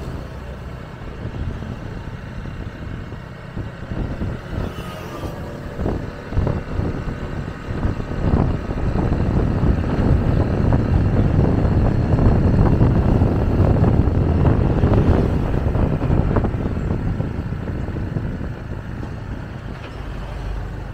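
A bus runs close by with a low engine-and-tyre rumble that swells to a peak about halfway through and fades away over the last few seconds.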